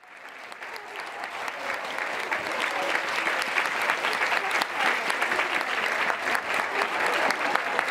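Crowd of spectators applauding a batter after his run of over-the-fence hits in batting practice. The clapping builds over the first two seconds and then holds steady.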